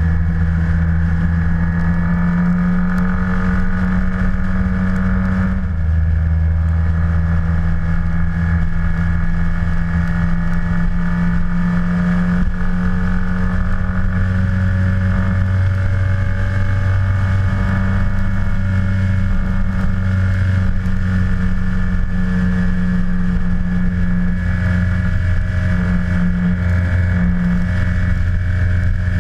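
Yamaha T-Max maxi-scooter parallel-twin engine running steadily with an unbroken low drone; the pitch shifts slightly about six seconds in.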